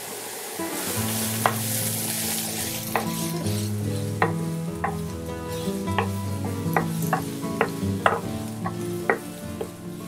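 Chopped onion sizzling gently in olive oil in a non-stick frying pan, with a steady hiss. A wooden spatula stirs and scrapes it, knocking on the pan about a dozen times at irregular intervals. The onion is being sweated slowly until soft.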